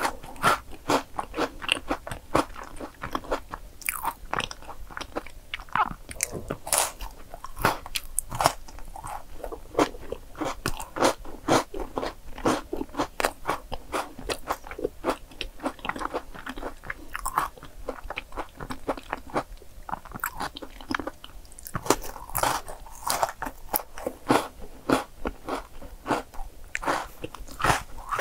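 Close-miked biting and chewing of a Milka milk chocolate bar: crisp snaps and crunches of the chocolate, many small sharp clicks in quick succession.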